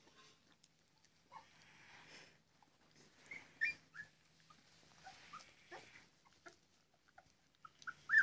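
Young puppies squeaking and whimpering while they nurse from their mother: many short, high squeaks scattered through, with a louder squeak about three and a half seconds in and the loudest right at the end.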